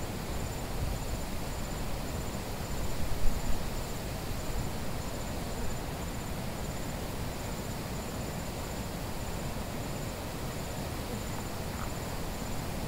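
Steady rush of a fast-flowing river over rocks, with an insect trilling in short, evenly repeated pulses high above it. A couple of brief knocks come a little over three seconds in.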